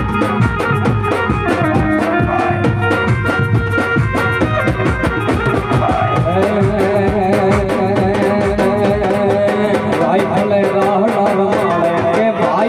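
Live band music for a Gujarati wedding song, played loud through the stage speakers: dhol drums and a drum kit keep a fast rhythm under keyboard. About six seconds in, a male singer comes in with a wavering melodic line.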